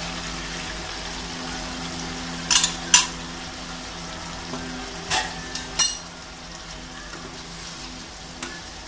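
Beef spleen and yogurt sizzling in a frying pan while a wooden spatula stirs, with a few knocks and scrapes of the spatula against the pan, two around two and a half to three seconds in and two more around five to six seconds. A steady low hum runs underneath.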